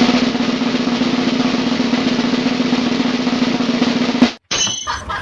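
Snare drum roll running for about four seconds, then cutting off abruptly, followed by a brief high-pitched sound.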